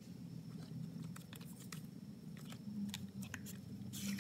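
Hands handling a small cardboard product box, giving scattered light clicks, taps and scrapes of card over a steady low hum.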